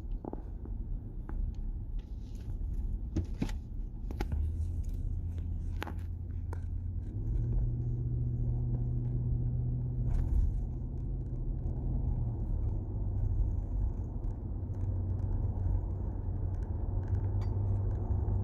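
Nissan Patrol Y62 driving on a road test, with a steady low road-and-drivetrain rumble. The rumble steps up in pitch about seven seconds in and drops back about five seconds later, with a few light clicks in the first half. No bearing hum is heard: the newly replaced rear hub bearing has cured it.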